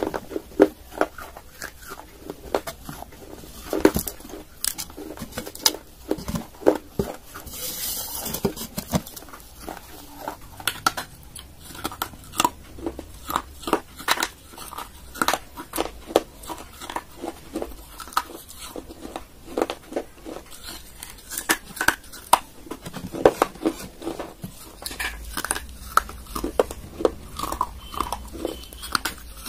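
Hard baked clay being bitten and chewed close to the microphone: a long run of sharp, dry crunches and cracks.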